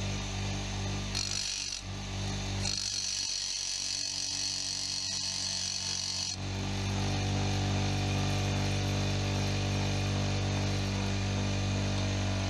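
An electric grinder motor hums steadily as it drives a diamond cup wheel. A carbide router bit is pressed flat against the wheel twice, briefly about a second in and then for about three and a half seconds, giving a high grinding hiss each time: the bit's cutting face being honed on the diamond.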